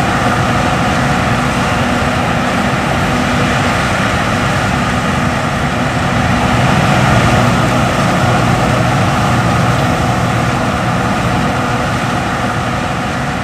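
John Deere S550 combine harvester running in the field: the steady drone of its diesel engine and threshing machinery, growing a little louder about halfway through and easing off near the end.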